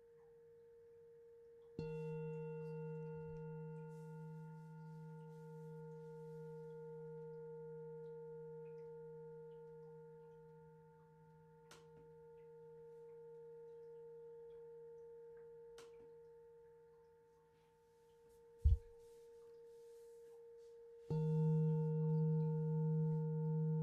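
A large metal singing bowl struck twice, about two seconds in and more loudly near the end, each time ringing out with a deep, slowly pulsing hum that fades away between strikes. A short low thump comes a few seconds before the second strike.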